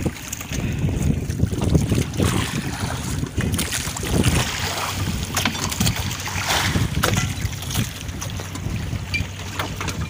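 Small boat running under engine power, a steady low drone, with wind buffeting the microphone and scattered knocks.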